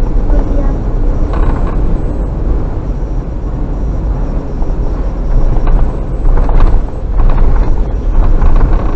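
Engines running and rumbling in the enclosed steel car deck of a ferry as vehicles roll off the bow ramp, a loud, steady low rumble that grows rougher for a few seconds near the end.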